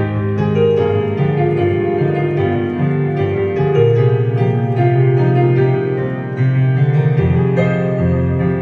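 Yamaha Clavinova digital piano playing a pop song arrangement, with a bass line under chords and a melody. The notes change continually and a new chord comes in firmly about two-thirds of the way through.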